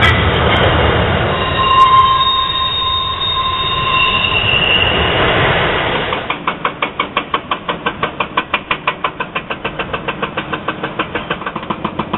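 A freight train passing with a steady rumble and high wheel squeal from about two to five seconds in. About six seconds in it gives way to an excavator-mounted hydraulic breaker hammering a concrete bridge pier, a fast even rattle of about six or seven blows a second.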